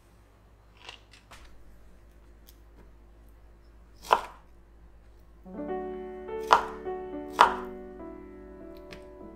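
Kitchen knife cutting pineapple on a wooden cutting board: a few light clicks, then three sharp knocks of the blade meeting the board, about four, six and a half and seven and a half seconds in. Soft background music with piano-like notes comes in about halfway through.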